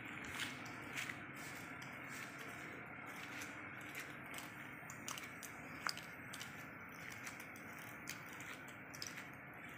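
Faint steady background hum with scattered small clicks and taps at irregular intervals, one sharper click about six seconds in.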